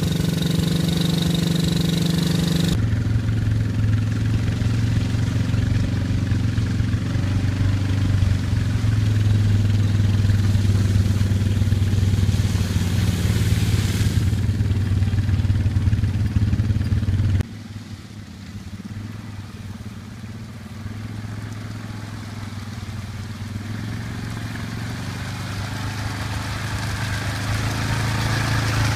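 Small ATV engines running in a string of short clips that cut abruptly from one to the next: first a youth quad chugging through mud, then a Yamaha Kodiak four-wheeler's single-cylinder engine, which grows steadily louder toward the end as it comes closer.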